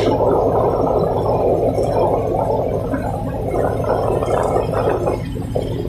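Tugboat's diesel engines running steadily: a low hum with a rough rumbling noise over it.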